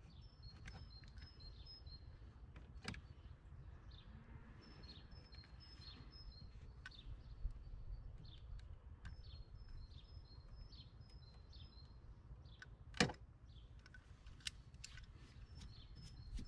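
A bird repeating short, high chirping phrases every few seconds over a low outdoor rumble, with a few sharp clicks, the loudest about 13 seconds in, as a utility knife cuts through rubber parts on a motorcycle's rack bracket.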